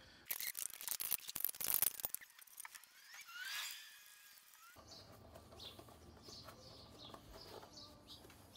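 A quick run of clicks and rattles from handling a scooter wheel and tyre, then birds chirping: one rising call, followed by a string of short, high chirps.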